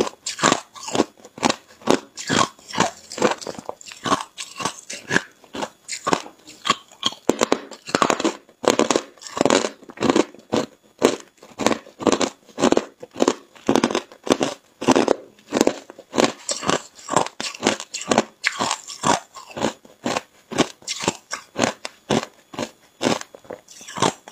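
Hard ice being crunched between the teeth in close-up, rapid sharp crunches about three a second without a break.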